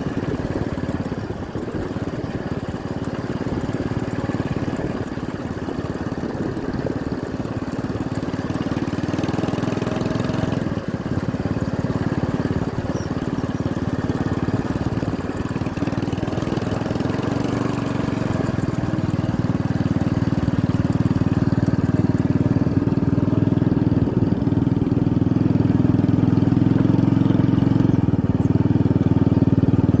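Motorcycle engine running steadily while riding along a rural track, getting a little louder in the second half.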